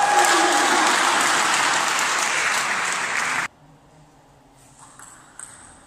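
Spectators applauding and cheering after a point, with a shout near the start; the applause cuts off suddenly about three and a half seconds in. A few faint clicks of a table tennis ball being struck follow.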